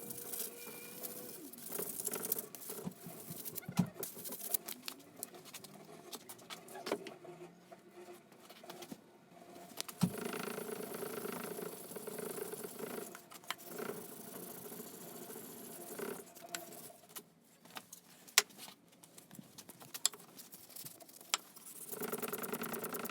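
Scattered clicks and light handling noises of hand work on small parts, with a steady hum coming in about ten seconds in and again near the end.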